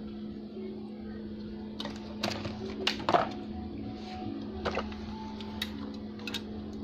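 Sharp plastic clicks and knocks as a fiber-optic media converter and its patch cord are handled, most of them in a cluster about two to three seconds in, with a few more later. A steady low hum sounds underneath.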